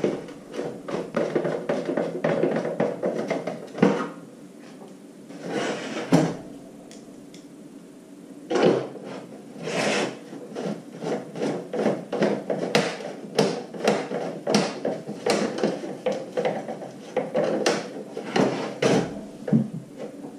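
Mr. Heater Buddy heater's plastic housing being handled and screwed back together: a run of screwdriver clicks and scrapes as the front screws are driven, with knocks as the heater is turned and set down on a wooden table.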